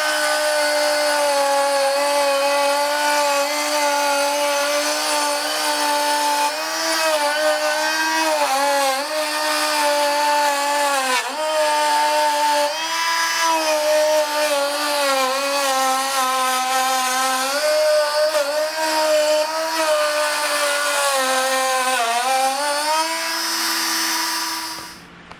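Plunge router with a bullnose (core box) bit cutting a juice groove into a butcher-block cutting board: a steady high motor whine whose pitch sags briefly several times as the bit loads up in the wood. It stops near the end.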